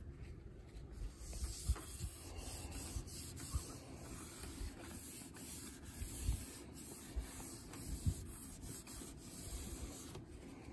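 A cloth rubbing and wiping over the glass screen and plastic bezel of a CRT monitor in irregular strokes, with occasional soft knocks.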